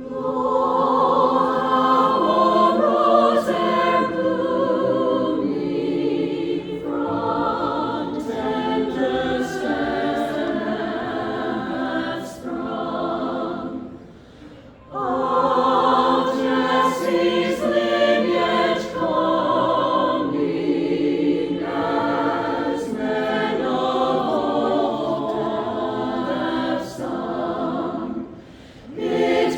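Choir singing in parts, in long sustained phrases with a short break about halfway through and another near the end.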